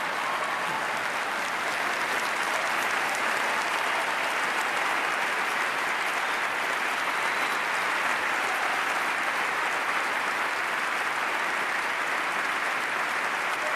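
Large audience applauding, a dense, steady wall of clapping that holds at an even level throughout.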